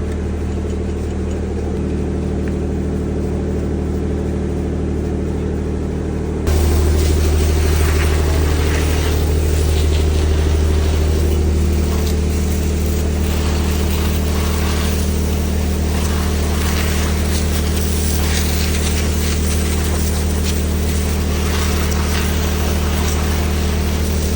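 Kirloskar 6R six-cylinder diesel engine of a 125 kVA generator set running steadily with a low, even drone. About six seconds in it suddenly gets louder and harsher.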